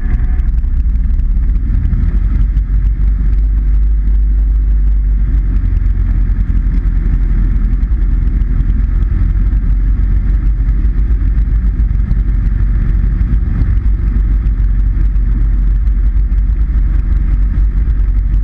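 Cessna 152's four-cylinder Lycoming O-235 engine and propeller running steadily at low power while the plane taxis, heard from inside the cockpit.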